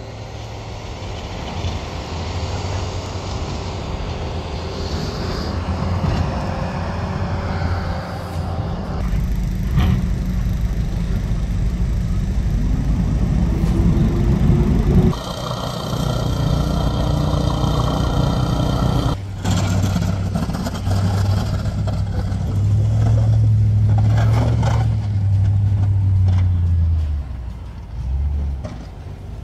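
Truck engines running as a pickup with a snowplow blade and a heavy work truck drive through snow. About halfway through, an engine revs up with a rising pitch that cuts off suddenly.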